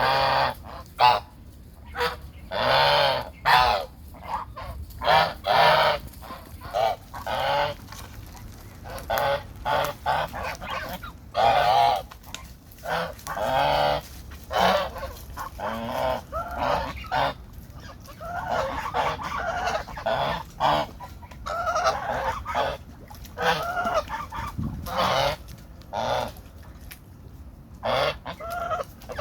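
A flock of domestic geese honking, many short calls in quick succession and often overlapping.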